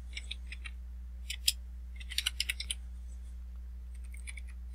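Computer keyboard keys being typed in short runs of clicks, over a steady low electrical hum.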